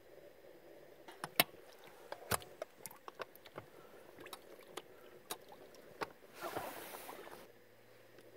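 Hands handling the stopped outboard motor: scattered light clicks and knocks, then a short rush of noise about six and a half seconds in.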